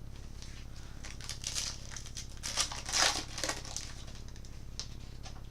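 Foil trading-card pack being torn open and crinkled, in an irregular run of crackles for a few seconds.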